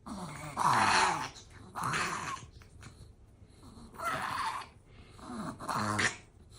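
Chihuahua in repeated fits of harsh, pitched breathing: four bouts about a second or two apart, each sliding down in pitch. These are the fits of a dog with a collapsing trachea and reverse sneezing, the kind heard in a reverse-sneeze episode or a tracheal-collapse cough.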